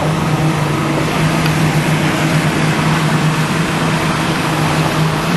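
Motorboat engine running steadily under way, with a dense rush of wind and water.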